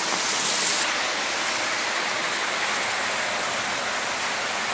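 Heavy rain falling steadily, a constant rushing hiss.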